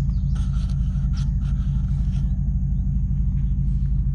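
Steady low rumble with a thin, steady high tone above it and a few faint scratchy rustles in the first half.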